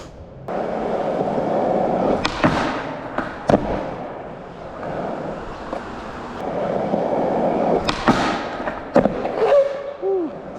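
Skateboard wheels rolling on pavement, with sharp board clacks about two and three and a half seconds in and again around eight and nine seconds in, the pops and impacts of a trick attempt on a bench.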